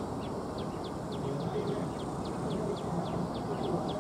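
Outdoor ambience: a regular high chirping, about three chirps a second, over a steady low background noise.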